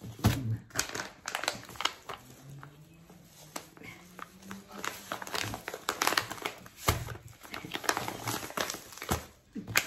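Plastic sweetener pouches and bubble wrap crinkling as they are handled and lifted out of a cardboard box, in irregular sharp crackles.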